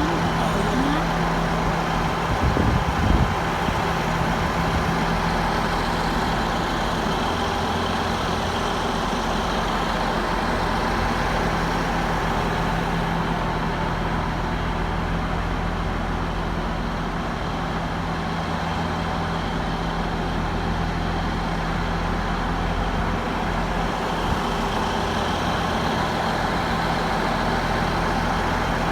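Diesel passenger train's engine running steadily, a constant low hum.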